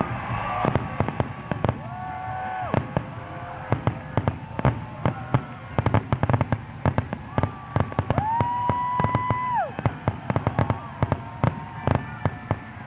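Firework display: a dense, irregular run of sharp bangs and crackles from bursting aerial shells, with steady held tones sounding underneath, the clearest about two-thirds of the way through.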